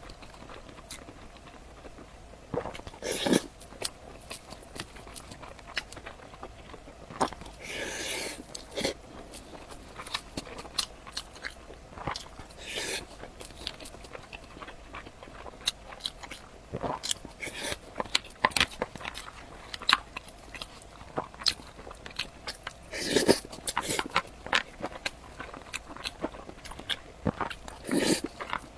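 A person eating close to the microphone: bites and chewing with crunchy crackles, with a louder bite every several seconds.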